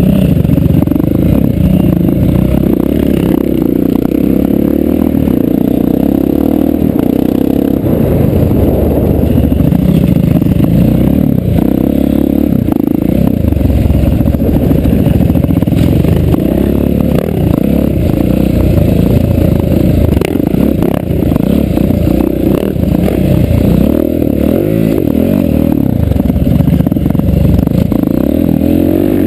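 Single-cylinder four-stroke dirt bike engine running loud and steady under throttle, heard up close from a camera mounted on the bike.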